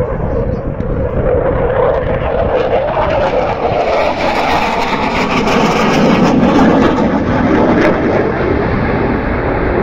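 Fighter jet engines rushing overhead, swelling to their loudest about six to seven seconds in, with the pitch of the roar sinking as the jets pass.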